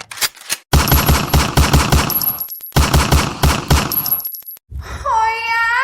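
Meme sound effect of machine-gun fire: two rapid bursts of shots, each about two seconds long. Near the end, a pitched sound comes in that dips and then rises.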